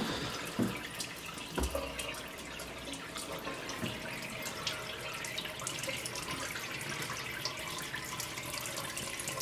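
Treated wastewater pouring steadily from an opened PVC pipe outlet and splashing onto the paper bed of a deep bed paper filter. A light knock comes about one and a half seconds in.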